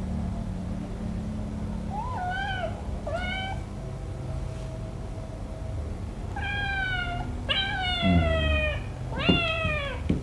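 A kitten meowing five times: two short mews, then three longer, louder meows, each falling in pitch. The kitten is being held and handled while it has a swollen, painful leg.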